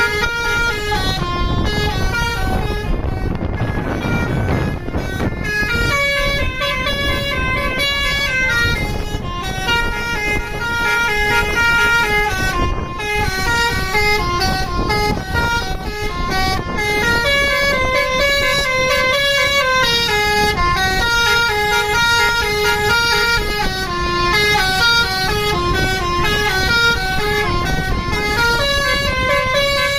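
Bus's telolet basuri musical air horn playing a melody: a run of stepped notes that repeats in phrases, over a low engine rumble.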